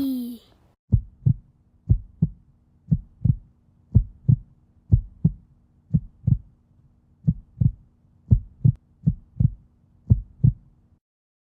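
Heartbeat sound effect: about ten slow lub-dub double thumps, roughly one a second, over a faint steady hum, cutting off near the end.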